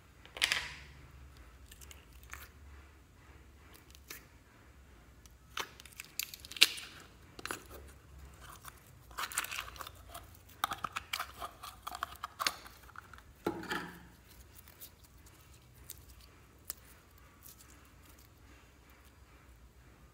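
Clear slime being squeezed out of a thin plastic jar: scattered sharp clicks and crinkles from the plastic, with a denser run of crackling about halfway through.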